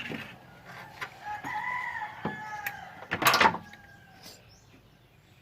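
A rooster crowing once in the background, one drawn-out arched call, with scattered clicks and a short loud clatter about three seconds in.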